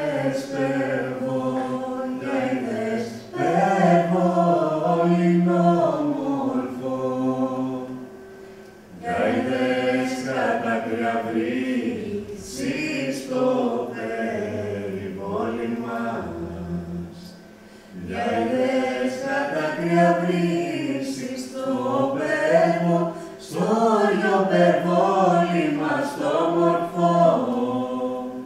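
A song sung by several voices together in phrases a few seconds long, over piano accompaniment.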